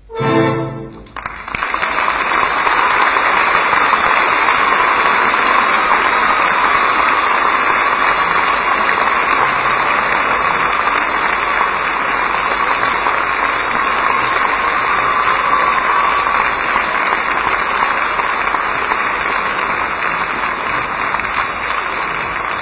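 An orchestra's closing chord about half a second in, then a theatre audience applauding loudly and steadily.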